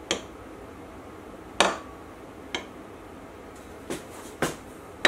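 Machined metal lever parts knocking and clinking against each other as they are fitted together by hand: six sharp knocks spread unevenly, the loudest about a second and a half in with a short ring after it.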